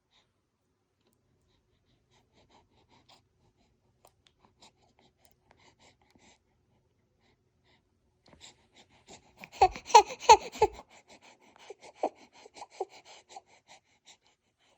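An eight-day-old newborn baby's small fussing sounds: after a long quiet stretch, a few short whimpering grunts and breaths come about eight seconds in, loudest just before the middle with some low bumps, then trail off into fainter little sounds.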